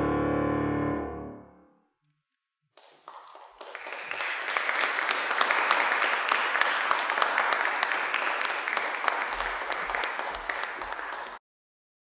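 A grand piano's last chord rings and dies away within about a second and a half. After a short silence an audience applauds steadily, and the applause cuts off suddenly near the end.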